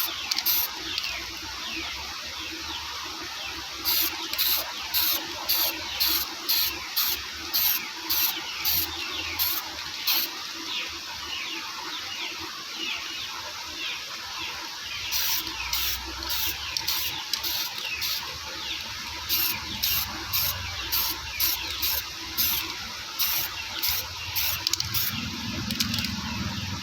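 Aerosol spray paint can being sprayed in short hissing bursts, about two a second, in several runs with pauses between.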